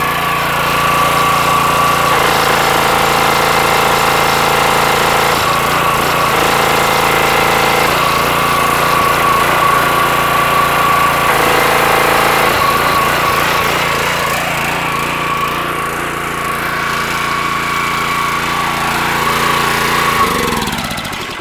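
Subaru-engined gas pressure washer running, its engine note shifting every few seconds as the rebuilt unloader valve switches the pump between spraying and bypass. Near the end the engine is switched off and winds down to a stop, the way it is supposed to shut down.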